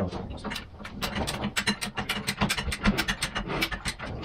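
High-lift jack ratcheting as its handle is pumped: a quick run of metallic clicks and clacks from the climbing mechanism, several a second. The jack is pressing the car's weight down onto the tire sidewall to break the bead off the rim.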